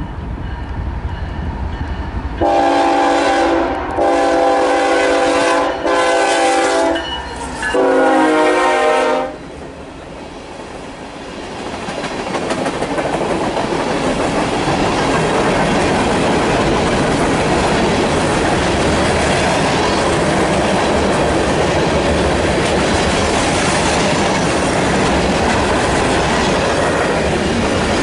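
Diesel locomotive horn sounding the long-long-short-long grade-crossing signal, a chord of several tones, then the train passing with a loud, steady rush and clatter of wheels on the rails.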